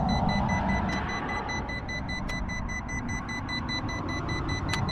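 Electronic warning beeps from the Yu Xiang F11 Apache RC helicopter setup, a fast, even run of short high beeps that keeps repeating, over wind rumbling on the microphone. The owner puts the warning down to the throttle lever being left up.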